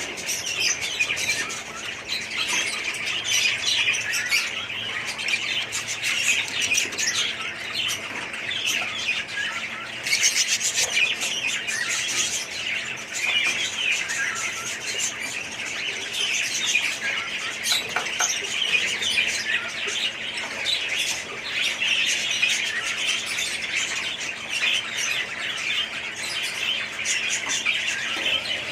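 A flock of budgerigars chattering and chirping continuously, many short calls overlapping.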